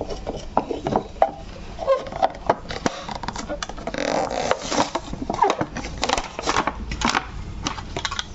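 A plastic toy truck and its packaging being handled: a run of small clicks, taps and knocks, with a longer rustle about four seconds in.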